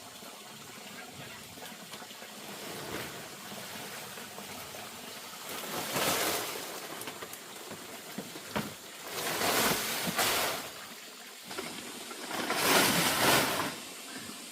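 Water pouring or splashing in three rushing bursts, each about a second long, over a faint steady background.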